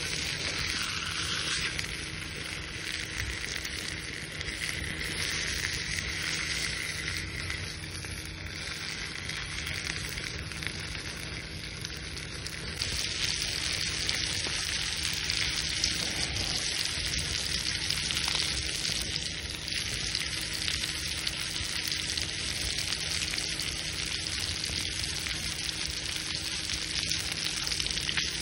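Thick-cut steak sizzling as it cooks over a wood fire in a fire pit, a steady hiss that grows louder about halfway through.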